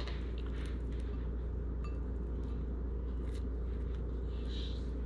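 Steady low hum, with a few faint soft clicks and light squishing as cooked lobster meat is pulled apart by hand and dropped into a creamy dressing in a bowl.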